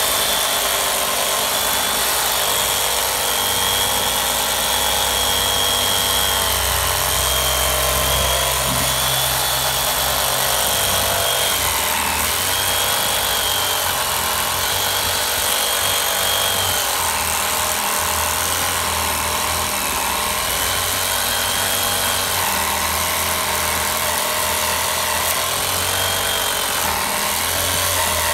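Ryobi handheld power saw with a bimetal blade cutting into rotten wooden window sill, running without a break. Its high motor whine wavers and dips now and then as the blade bites into the wood.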